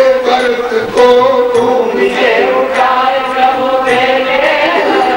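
Devotional Hindi bhajan: a sung melody with instrumental accompaniment over a steady beat of about two strokes a second.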